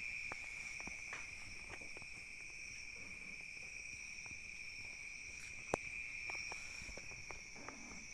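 Steady, high-pitched chirring of crickets, with scattered small clicks and taps and one sharper click a little before six seconds in.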